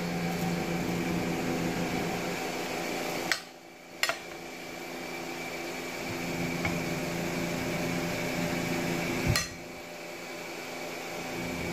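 A steady background hum from an appliance motor, with a click and a sudden drop in level about three seconds in and again about nine seconds in.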